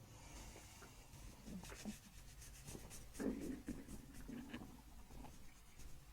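Faint rubbing and rustling of hands on skin and clothing during hands-on soft-tissue work, with a slightly louder scuffle about three seconds in.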